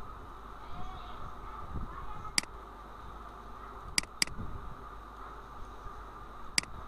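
Computer mouse clicked four times, sharp and brief: once, then a quick double click, then once more near the end, over a steady faint hum of room noise.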